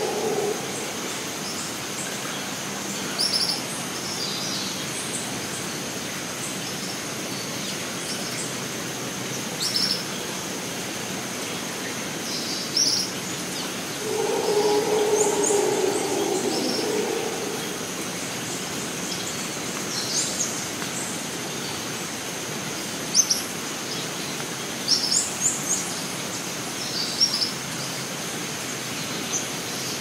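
Rainforest ambience: a steady high insect drone under short bird chirps scattered throughout. A low, drawn-out call lasting about three seconds stands out about halfway through.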